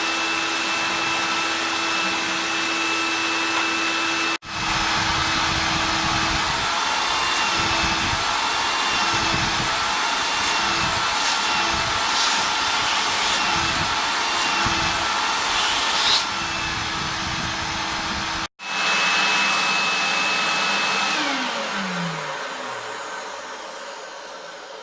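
Hoover Convertible 1124 upright vacuum cleaner running loudly with a steady high motor whine, cut off abruptly twice for a moment. Through the middle stretch an uneven low rumble runs under the whine. About 21 seconds in the motor is switched off and its whine falls in pitch as it runs down and fades.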